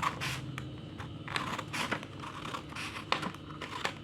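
Scissors cutting a sheet of paper: a run of short, irregular snips mixed with light paper rustling.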